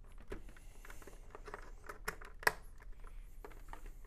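Small plastic clicks and handling noise as a chinstrap buckle is worked onto a football helmet's top snap post, with one sharp snap about two and a half seconds in as the buckle locks onto the post.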